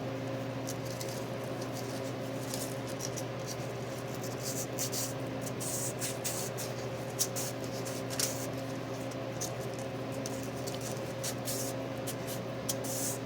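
Fine sandpaper rubbing on the copper commutator of a starter motor's armature, in irregular short scratchy strokes, over a steady low hum.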